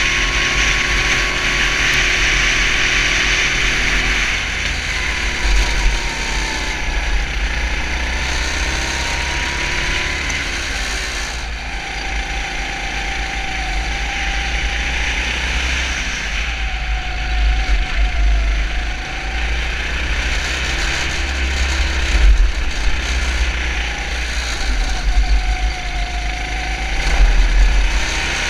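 Onboard sound of a 250 cc four-stroke kart engine on track. Its note glides up and down over and over as the revs rise and fall through the corners, over a steady low rumble.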